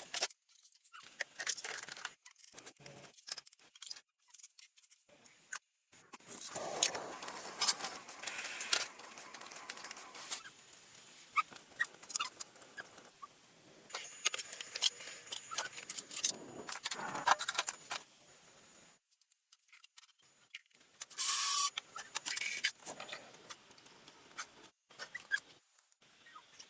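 Irregular clicks, scrapes and rustling from objects being handled, stopping and starting, with a louder stretch about two thirds of the way in.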